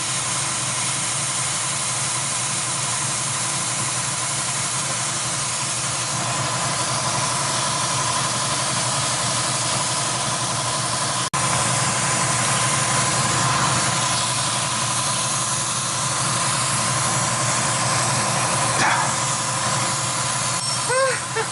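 Steady hiss with a low hum and a faint steady whine from running machinery, broken by a brief dropout about eleven seconds in.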